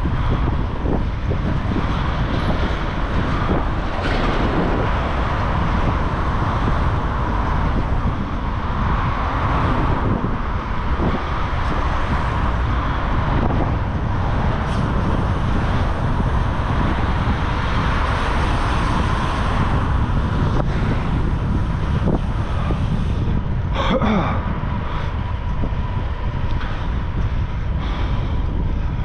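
A person breathing heavily close to the microphone: noisy rushes of breath that swell and fade every few seconds over a steady low rumble.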